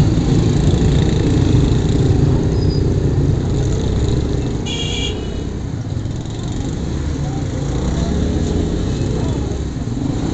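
Small motorcycle engine running at low speed in slow, crowded street traffic, among other motorcycles. A short high horn beep sounds about halfway through.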